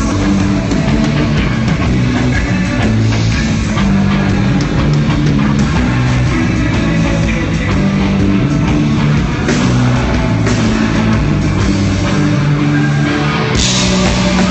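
Rock band playing live and loud, with drum kit, bass and electric guitar. A cymbal crash near the end.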